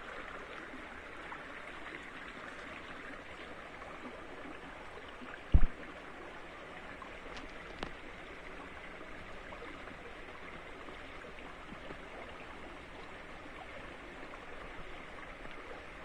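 Shallow stream flowing and trickling steadily over rocks. A single loud, low thump about five and a half seconds in, followed by a faint click a couple of seconds later.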